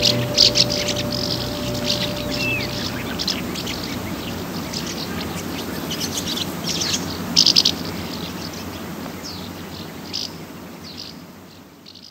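Birds chirping and calling over a steady hiss. A few held notes of a music track die away in the first three seconds, and the whole fades out near the end.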